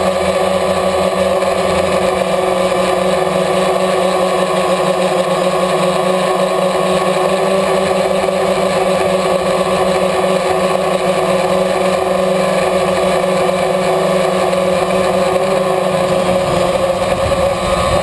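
DJI Phantom quadcopter's electric motors and propellers running at a steady speed, a continuous even buzz with a fixed pitch, as heard through the onboard GoPro Hero 2.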